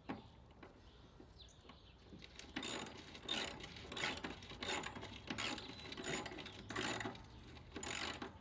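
Hyper Tough ratchet handle clicking its pawl in repeated back-and-forth strokes, about one and a half strokes a second, starting a couple of seconds in, as a rusted fastener is turned.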